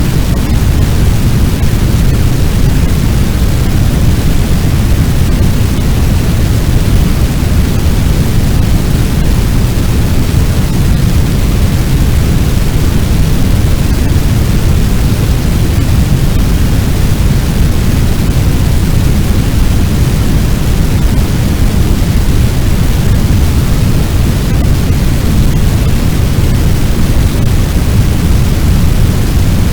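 Fire sound effect meant to sound like a large blaze: a loud, steady noise without breaks, heaviest in the low range.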